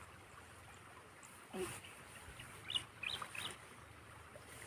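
Faint calls of farm poultry: one lower call falling in pitch about one and a half seconds in, then a few short high chirps around three seconds in.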